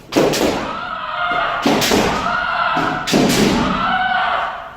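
Three sharp impacts about a second and a half apart, each followed by a long shout: kendo strikes with the stamping step (fumikomi) on a wooden floor and the striker's kiai.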